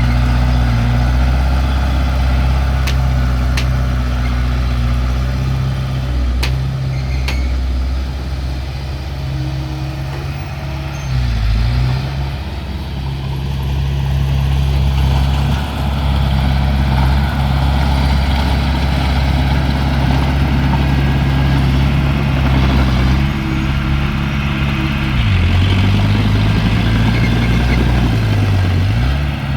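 Heavy diesel engine of earthmoving machinery running steadily, its pitch dipping briefly twice as it takes load. A few sharp metallic clicks sound in the first quarter.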